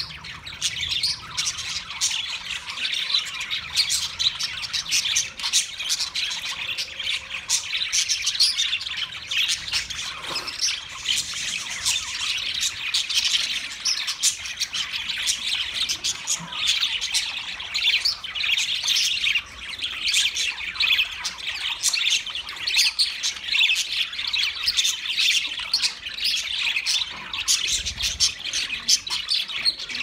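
A flock of budgerigars chattering: many high chirps and squawks overlapping without a break.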